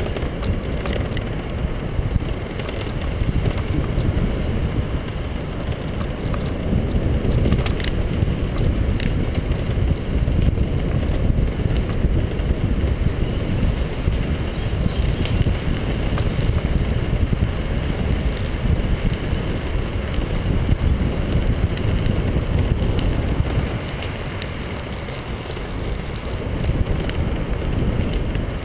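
Wind buffeting the microphone, mixed with tyre rumble on a rough paved path during a fast ride, with a few brief rattles about eight to nine seconds in.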